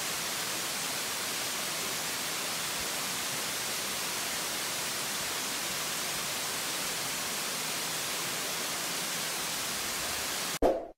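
Steady hiss of a waterfall, water cascading over rock. Near the end it cuts off abruptly, followed by a brief loud thump.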